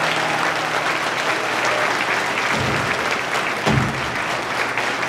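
Audience applauding at the end of a song, while the last acoustic guitar chord dies away in the first second. Two dull thumps sound through the clapping near the middle.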